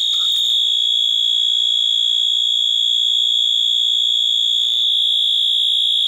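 Wheelock MT-24-LSM fire alarm horn sounding one steady, very loud, high-pitched continuous tone.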